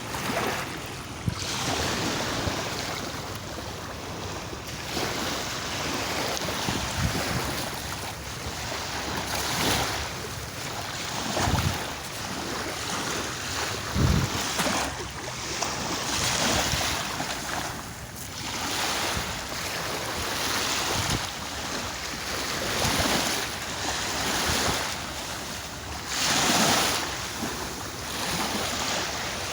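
Sea waves breaking and washing in, a steady rush that swells and falls back every few seconds. A couple of low buffets of wind hit the microphone about halfway through.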